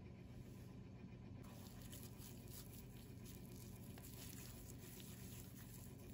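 Faint soft squishing and patting of raw ground beef being pressed and flattened into a patty between the hands.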